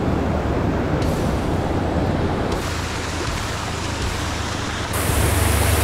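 Steady rush of fast river water and rapids below a dam, with a strong low rumble; the hiss turns brighter about five seconds in.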